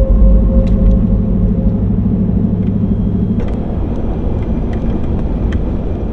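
Pickup truck driving on a gravel road, heard from inside the cab: a steady rumble of engine and tyres, with a few light ticks. The rumble eases a little about halfway through.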